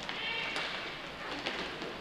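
Inline hockey game sounds on an indoor rink: a steady rumble of play with a few sharp clicks of sticks and puck, and a brief high-pitched sound at the start.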